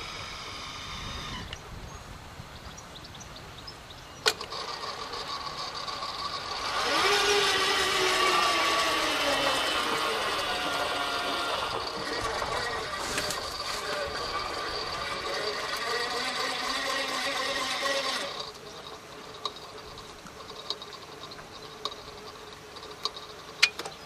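Electric joint motors of an EOD robot's manipulator arm whining as the arm moves, with pitches that slide. The sound is loudest for about eleven seconds in the middle, and a sharp click comes about four seconds in.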